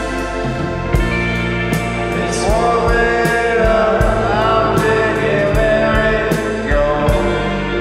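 Live rock band playing: drums keeping a steady beat under electric guitar, bass and keyboard. Voices come in about two and a half seconds in, singing long held notes that slide between pitches.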